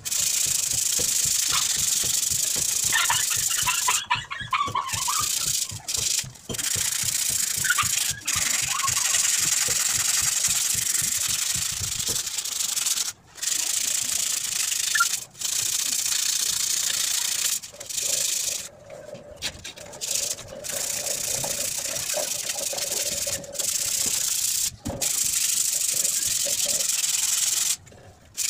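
Sandpaper rubbed by hand over the rusty metal legs of an office chair's five-star base: a steady scratchy hiss, broken by about ten short breaks as the strokes stop and restart.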